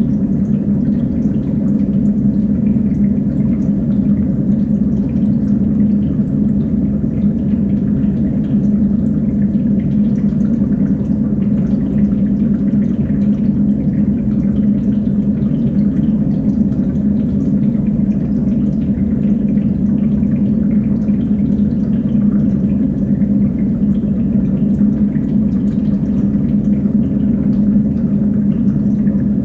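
Water running and dripping through a multi-tank fish housing rack, over a steady low hum, likely from the rack's pump. It stays unchanged throughout, with no distinct events.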